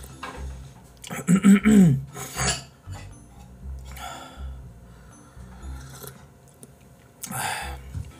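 Sipping and slurping from a mug, with a brief voiced sound falling in pitch about a second and a half in, the loudest moment. Quiet background music with a steady low beat runs underneath.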